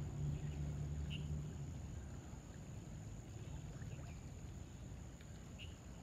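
Riverside ambience: a low rumble that fades out about a second and a half in, a steady high-pitched whine, and two short bird chirps, about a second in and near the end.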